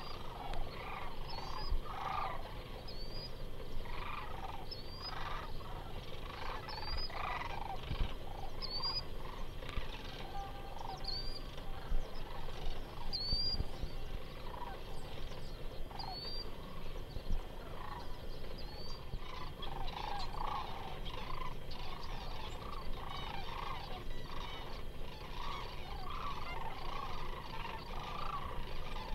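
A flock of sandhill cranes calling, an overlapping chorus of rolling, rattling calls that grows busier in the last third. A short, high rising note from a smaller bird repeats about once a second through the first half.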